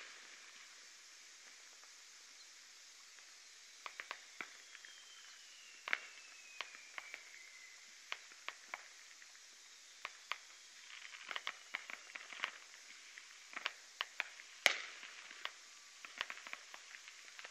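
Fireworks going off in the distance: scattered sharp pops and bangs with a long falling whistle a few seconds in. The loudest single bang comes near the end.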